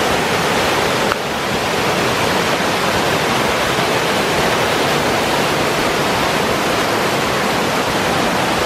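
Mountain stream rushing down small rock cascades just below a waterfall: a loud, steady rush of white water close by.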